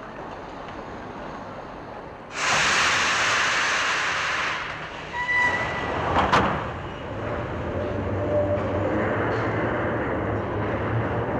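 Old wooden-bodied Paris Métro train at a platform: a loud hiss of air for about two seconds, a brief high tone, and a sharp clunk as the carriage doors shut. Then the low hum and rumble of the train starting to move.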